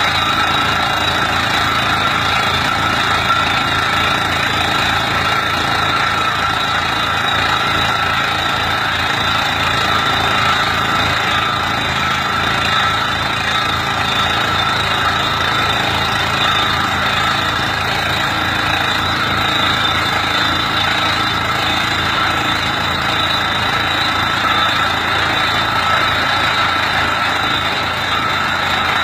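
Tractor engine running steadily while driving a drilling rig's hydraulics through the PTO, with a steady high whine over the engine's drone.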